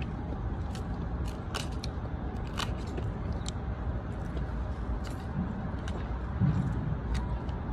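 Plastic fork picking at salad leaves in a plastic takeout container, and chewing of crisp lettuce: scattered small clicks and crunches over a steady low hum of traffic.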